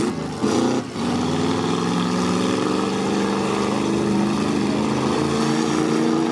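Stock V8 engines of demolition derby cars running, one engine's note rising and falling gently with the throttle.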